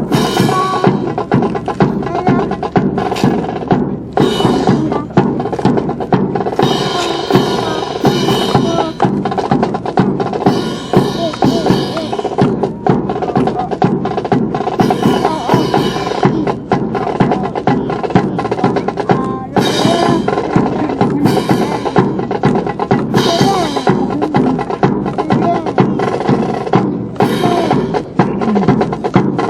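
Brass band playing a march over a steady beat of snare and bass drum.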